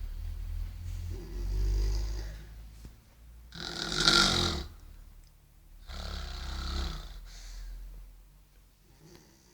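A woman snoring in her sleep: three long snoring breaths a couple of seconds apart, the loudest about four seconds in.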